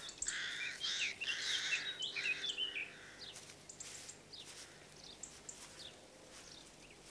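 Small songbirds chirping and calling, with a busy run of high, quick chirps over the first three seconds, then fewer and fainter calls.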